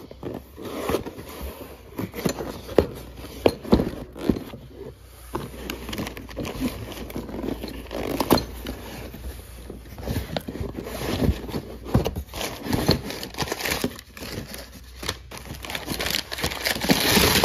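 Cardboard shipping boxes being handled and opened: cardboard scraping and flaps bending, with irregular taps and knocks, and kraft packing paper crinkling. The paper rustling is loudest near the end.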